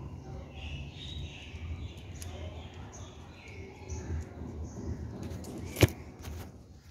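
Light clicks of hand tools working on an open motorcycle engine, with one sharp, loud knock near the end. Birds chirp faintly in the background.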